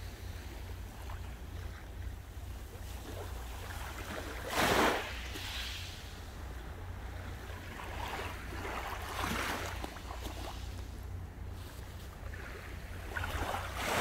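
Small sea waves breaking and washing up on the shore in slow hissing surges, three of them, the loudest about five seconds in, over a steady low rumble.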